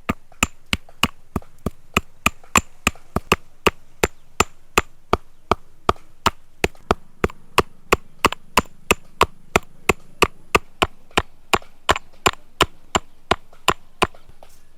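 Pestle pounding dry fennel and cumin seeds in a mortar: sharp, even strikes, about three a second, stopping near the end.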